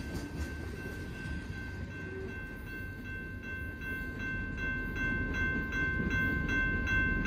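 Railroad grade-crossing warning bell ringing, a steady clang at about three strokes a second that grows louder toward the end, over the low rumble of a freight train's last cars rolling past and away.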